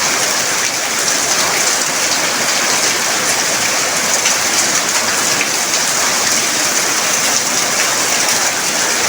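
Heavy rain pouring down in a steady, dense hiss, with drops pattering on surfaces close by.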